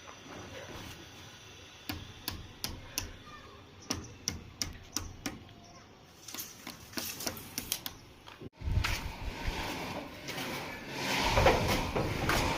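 Rapid sharp taps or clicks, a few a second, then a sudden cut about two-thirds of the way in, followed by a louder stretch of mixed noise.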